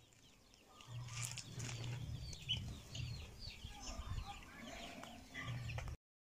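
Chickens clucking, with small birds chirping over and over in the background.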